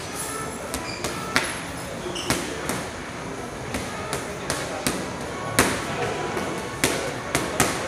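Boxing gloves smacking into focus mitts during pad work: about a dozen sharp slaps at an uneven pace, some in quick pairs, over the hubbub of a training gym.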